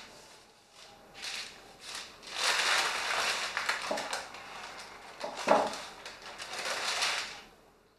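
A sheet of paper rustling and crinkling as it is handled and lifted from a worktop, in a run of noisy bursts with a sharp crackle about five and a half seconds in.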